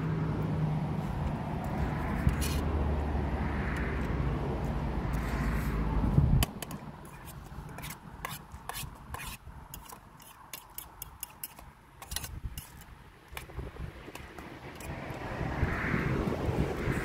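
A vehicle engine running steadily at idle, cutting off suddenly about six seconds in. A run of small clicks and taps follows, then a rising rush of noise near the end.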